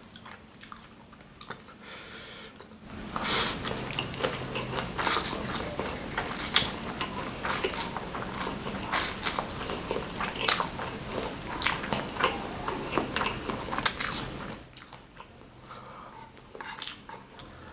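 Close-miked chewing and crunching of food. It is quieter at first, then loud with rapid crisp crunches from about three seconds in, and goes soft again near the end.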